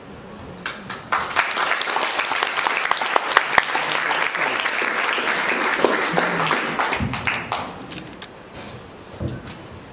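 Audience clapping, starting about a second in and dying away after about seven seconds.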